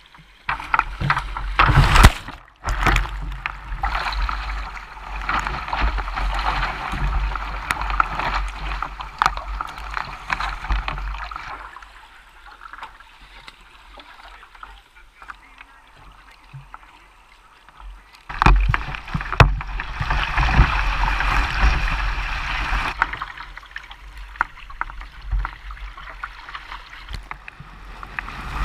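Water sloshing and splashing against a sea kayak's hull as it is paddled, with wind rushing on the microphone. Loud rushing stretches come first and again about two-thirds of the way in, with a quieter spell between them and a fresh loud burst at the end.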